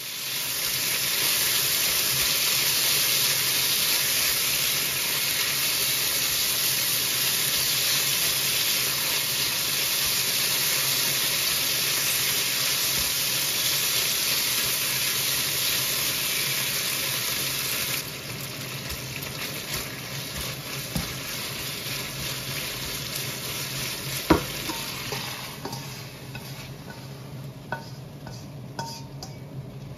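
Beef sizzling in hot oil in a wok as it is stir-fried with a spatula. About 18 seconds in the sizzle drops suddenly to a quieter sizzle, with scattered clicks and knocks against the pan, one sharp knock standing out.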